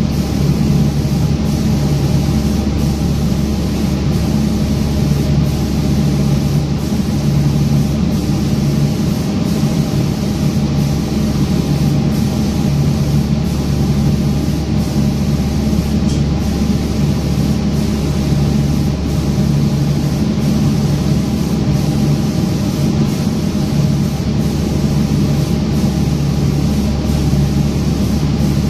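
Automatic lacquer spraying machine running: a steady, loud mechanical hum with a low drone and an even hiss.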